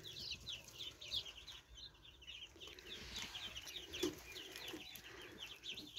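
A brood of young chicks peeping: a continuous chorus of short, high cheeps that fall in pitch, several a second and overlapping.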